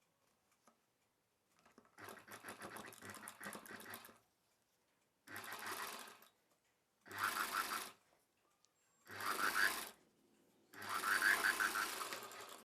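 Sewing machine stitching in five short runs separated by brief stops, the first run the longest. It is sewing thread piping along the neck edge of a blouse lining piece.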